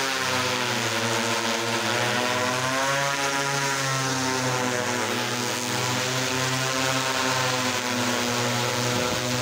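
Agricultural crop-spraying drone's propellers running close overhead: a loud, steady buzz of many stacked tones whose pitch wavers gently up and down as the rotors change speed.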